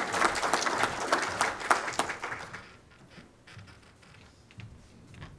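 Audience applauding, dying away about halfway through. After it the room goes quiet, with a few faint knocks.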